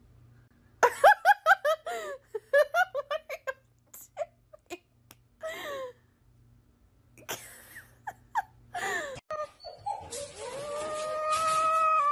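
A person laughing in quick bursts for the first few seconds, then scattered clicks and short sounds. From about ten seconds in, a cat gives one long yowl that rises and then holds.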